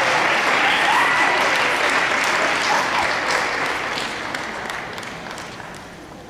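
Audience applauding, with a few cheers near the start, the applause dying away over the last couple of seconds.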